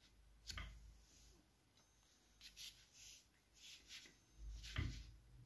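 Very faint rustling and light ticks of a metal crochet hook drawing cotton thread through stitches, with a slightly louder handling knock near the end.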